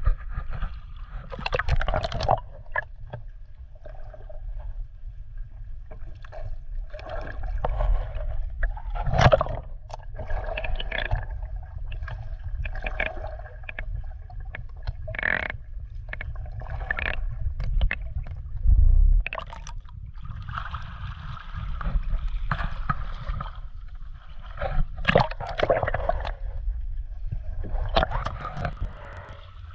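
Sea water sloshing, gurgling and splashing around an action camera dipped in and out of the surface. A steady low rumble runs under irregular splashes every second or two.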